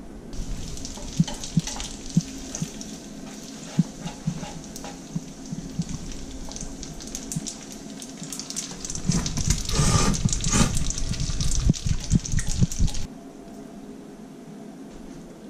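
Spaghetti sizzling in oil in a frying pan, with clicks and taps of utensils against the pan. The sizzle and clatter get louder about nine seconds in as the pasta is tossed, then cut off suddenly about thirteen seconds in.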